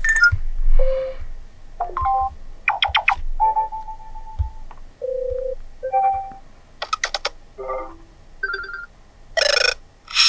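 Built-in ringtones of a TCL Tab 10L 8491X tablet previewed one after another, each cut off after well under a second: about a dozen short tuneful snippets, each different, with brief gaps between them.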